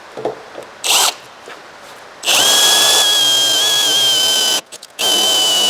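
Power drill drilling a bolt hole into metal: a short trigger blip about a second in, then a steady high motor whine that sags slightly in pitch under load, stops briefly a little over halfway and starts again.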